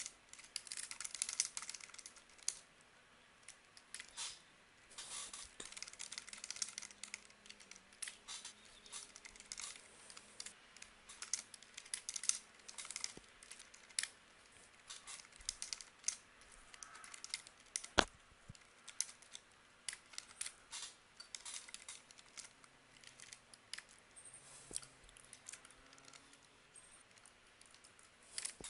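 Computer keyboard typing in irregular runs of keystrokes with short pauses between them, fairly quiet; one louder click stands out about two-thirds of the way through.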